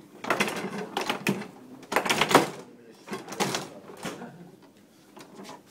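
Foosball table in fast play: sharp plastic clacks and knocks of the ball being struck by the figures and rattling against the table, with rods jolting. They come in quick bursts, thinning out near the end.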